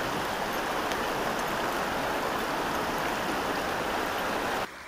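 Shallow creek water rushing over rocks, a steady hiss of moving water. Near the end it drops suddenly to a quieter stream sound.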